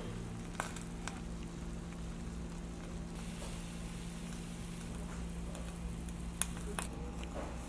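Hot Korean soups (ttukbaegi gukbap) bubbling and sizzling faintly in earthenware bowls just off the heat, over a steady low hum, with a few light clicks.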